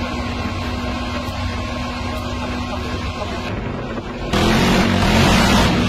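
Towed howitzer firing: a sudden loud blast about four seconds in, lasting about a second and a half over a steady low rumble.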